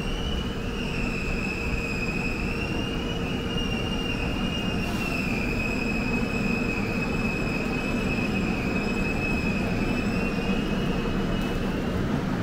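Subway train on the rails giving a long high-pitched metal squeal that wavers slightly in pitch and stops near the end, over a steady rumble that grows a little heavier about halfway through.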